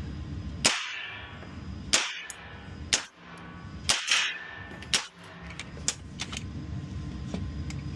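Firearm fitted with an Outlier Backdraft suppressor fired five times at about one-second intervals, each shot a short sharp report, followed by a few fainter shots.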